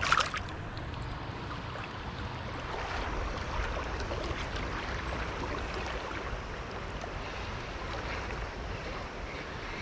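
Swollen creek water rushing steadily, running high and fast after a heavy storm, with a low rumble of wind on the microphone. A brief knock right at the start.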